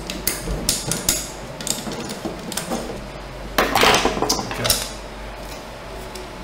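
Small clicks and knocks of an aluminium 3D-printer bed plate and a screwdriver being handled, with a louder clatter about three and a half seconds in.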